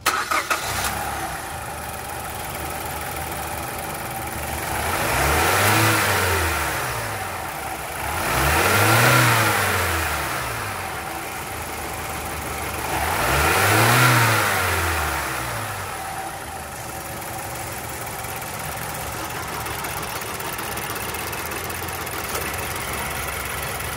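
Turbocharged four-cylinder petrol engine of a 2010 Mazda CX-7 idling, revved three times, each time rising and falling back to idle, then idling steadily.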